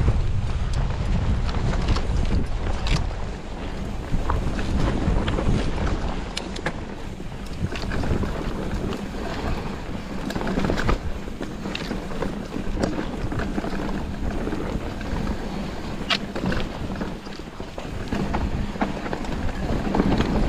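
Mountain bike riding down a dirt trail: wind rushing over the microphone and tyre noise, with frequent short knocks and rattles from the bike over bumps.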